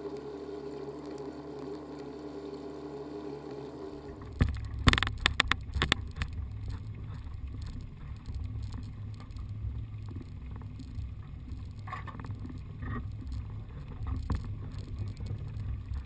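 A boat's outboard motor running steadily under way, cut off about four seconds in by a low rumble; a quick run of loud knocks and clatter follows about a second later, with a few more knocks later on.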